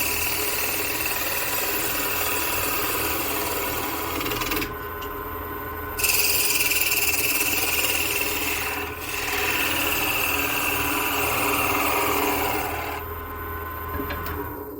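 Wood lathe running while a fingernail gouge cuts spinning western cedar: a hissing cutting noise over the lathe's steady hum. The cutting stops for about a second and a half around four and a half seconds in, and again near the end, leaving only the lathe running.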